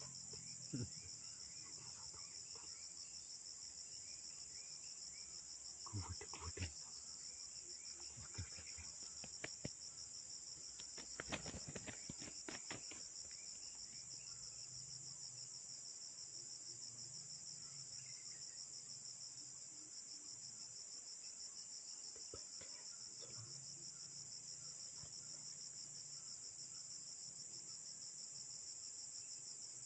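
A steady, high-pitched, finely pulsing chorus of crickets or similar insects trilling without a break. A few scattered clicks and knocks, clustered between about 6 and 13 seconds in.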